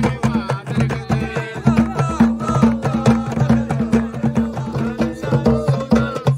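Moroccan Berber folk singing with hand drums: voices singing a melody over a steady, dense beat of drum strokes.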